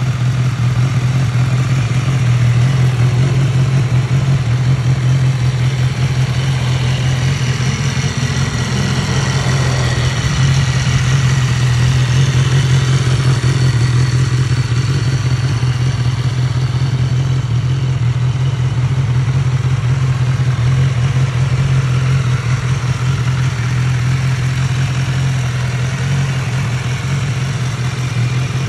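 2014 BMW S 1000 R's inline-four engine idling steadily through an aftermarket Scorpion carbon-fibre slip-on exhaust.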